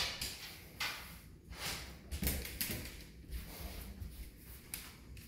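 Black and tan coonhound sniffing and moving about in an acrylic bathtub, then on a bath mat: irregular short sniffs and rustles, with a few soft thumps about two seconds in.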